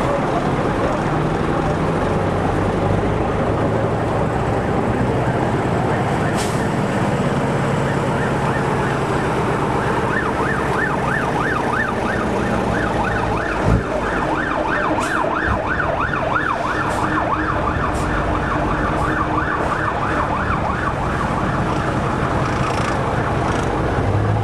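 Heavy lorry diesel engines running as the vehicles pass slowly. From about ten seconds in, a fast warbling siren starts up and goes on, its pitch swinging up and down several times a second. A single sharp knock comes just past the middle.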